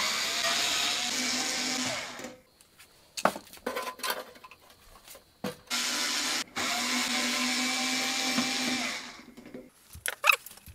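Electric screwdriver running in two spells of about two and three seconds, backing out the screws of a computer case, with clicks and knocks of handling between the spells.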